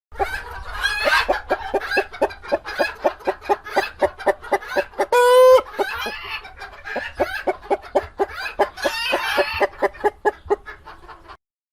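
Chickens in a henhouse clucking in a quick, continuous run, several clucks a second. About five seconds in, one chicken gives a single loud, held call about half a second long.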